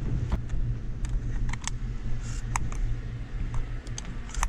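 Vehicle engine running steadily, a low hum, with several short clicks and knocks of handling scattered through it.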